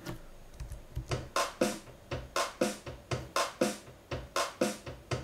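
A simple MIDI loop playing back through a software instrument: short, evenly spaced synth notes over a low beat, a pattern that repeats about once a second. Playback starts about a second in.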